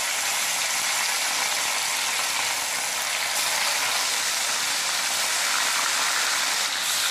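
Pieces of fish frying in hot oil in a wok, a steady, even sizzle as the freshly added pieces cook.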